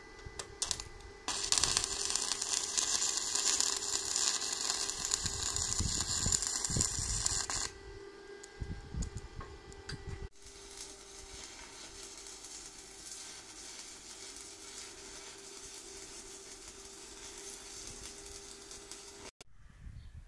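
Stick (arc) welding of square steel tube: a loud, steady crackling hiss from the arc beginning about a second in and breaking off after about six seconds, then after a cut a second, quieter run of crackling for about nine seconds. A steady hum lies beneath.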